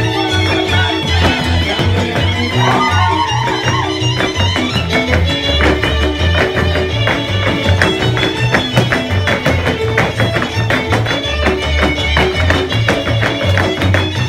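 Hungarian folk dance music from Szilágyság: a fiddle melody over a steady pulsing bass line and driving rhythmic string accompaniment.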